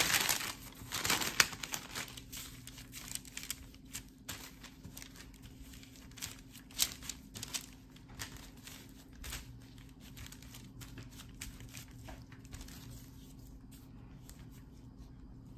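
Baking paper crinkling as it is lifted and folded over crumbly scone dough, loudest in the first second and a half, then scattered rustles and soft clicks of gloved hands and a plastic scraper pressing and folding the dough, thinning out near the end.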